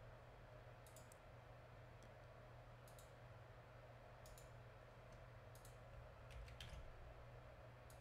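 Faint, sparse computer mouse clicks, about eight over several seconds, over a low steady hum.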